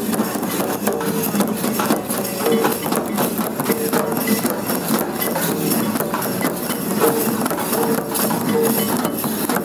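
Folk drums, a stick-beaten barrel drum and shoulder-slung hand drums, played in a fast, dense rhythm, with short held notes now and then.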